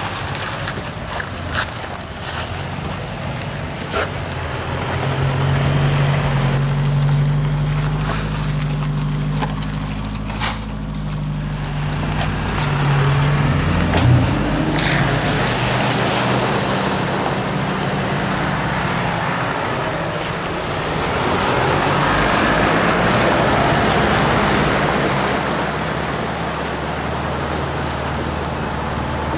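A four-wheel-drive ute's engine running at low revs with scattered clicks of tyres over rock, then water splashing as it drives through a shallow creek crossing, swelling loudest a few seconds before the end.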